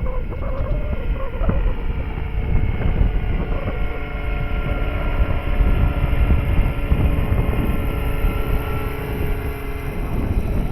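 Strong wind buffeting the microphone, over the steady whine of a large electric RC scale helicopter (Eurocopter BK117 model) running its motor and rotors in flight.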